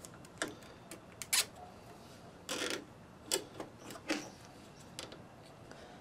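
Black nylon zip tie being fastened around a lawn mower's brake cable: scattered small clicks and taps, with one short rasp about two and a half seconds in as the tie is pulled tight.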